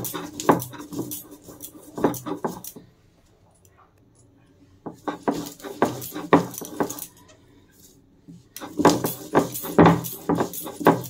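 Stone hand-grinder (shil-nora) at work: the hand stone scraping and knocking back and forth over the flat stone slab as it crushes cashews, peanuts and poppy seed with water into a paste, in rhythmic strokes. The strokes pause for a couple of seconds about three seconds in, and again briefly about seven seconds in.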